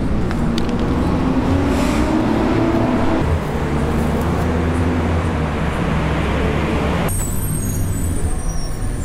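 Road traffic noise: vehicle engines running and passing, over a steady low hum. About seven seconds in the sound changes abruptly, growing lighter, with faint high whistling tones on top.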